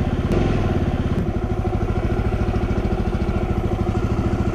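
Motorcycle engine running steadily under way, with an even, rapid exhaust pulse and a small change in pitch about a second in.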